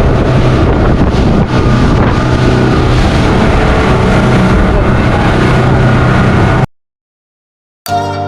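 Boat engine running steadily under way, with heavy wind rushing over the microphone. It cuts off abruptly, and after a second of silence music begins near the end.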